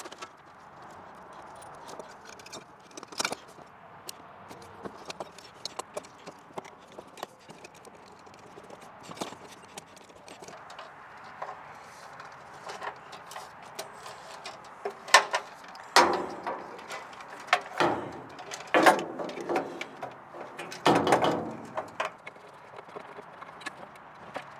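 Scattered clicks, taps and metal knocks from handling a steel electrical box and its fittings, with a run of louder knocks and clatter about two thirds of the way through.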